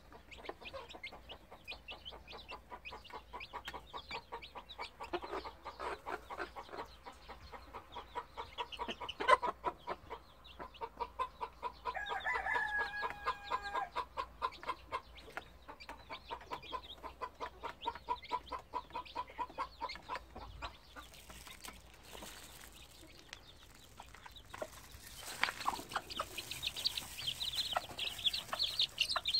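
Mother hen clucking softly in long, rapid, even runs while her chicks peep around her; higher, thinner chick peeping grows louder near the end.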